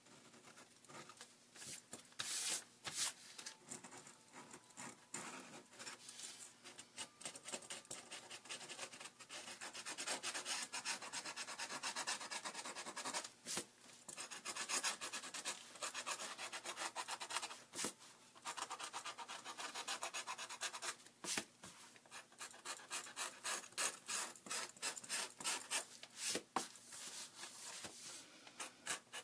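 Book repair knife scraping old paper off the edge of a book's cover board in many quick, short strokes, with a few brief pauses. It is trimming away old acidic pastedown paper so a new endsheet can be attached.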